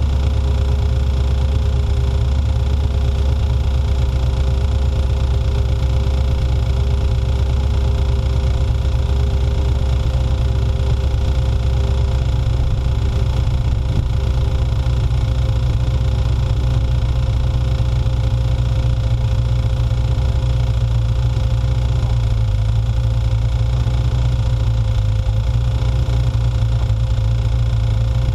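Motorcycle engine running at a steady speed while riding a dirt two-track, under a heavy low rumble of wind and ride noise. The low drone shifts a little about three-quarters of the way through.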